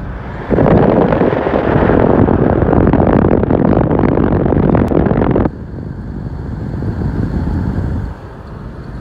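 Wind rushing over the microphone and road noise from a vehicle driving on a paved road. Loud for the first few seconds, then it drops suddenly to a lower rumble about five and a half seconds in.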